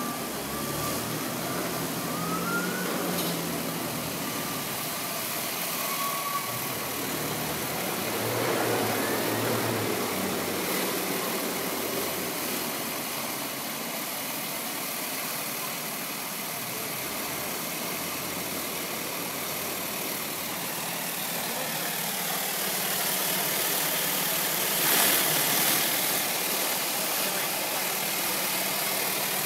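Rotary surface-cleaner head spraying hot high-pressure water onto concrete to strip rubber tyre marks: a steady spray hiss with an engine-driven pump running underneath, briefly louder near the end.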